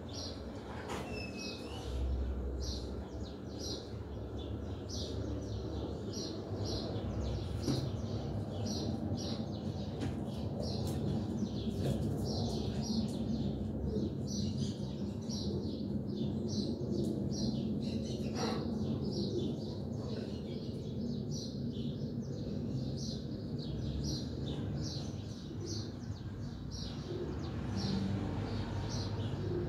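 A small bird chirping over and over, short high chirps about once or twice a second, over a steady low background rumble.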